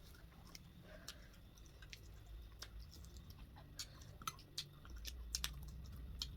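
Close-miked mouth sounds of eating: chewing with irregular sharp, wet clicks and smacks, over a low steady hum.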